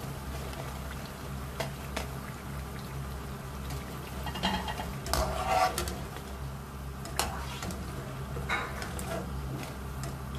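Wire spider skimmer scraping and clinking against a wok several times while lifting pakoras out of deep-frying oil, the loudest strokes about five seconds in, over a faint sizzle of frying and a steady low hum.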